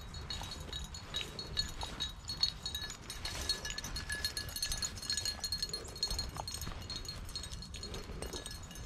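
Light metallic clinking from a dog's collar and leash hardware as it moves, with scattered footstep clicks over a steady low rumble.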